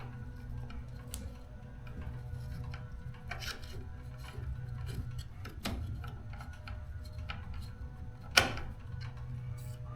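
Scattered small clicks and taps of a screwdriver and parts being handled, with one sharp click about eight seconds in, over a steady low hum.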